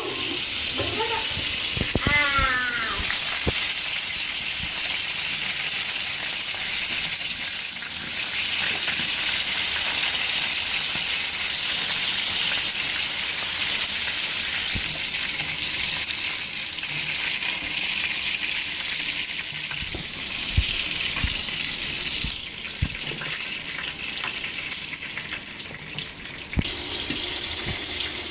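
Food frying in hot oil in a pan: a steady sizzle, with scattered knocks of a utensil as it is stirred.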